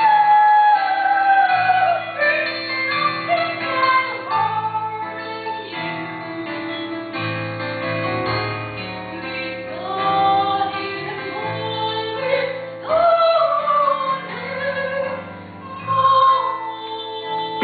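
A woman singing in an operatic, classical style, holding long notes, with piano accompaniment.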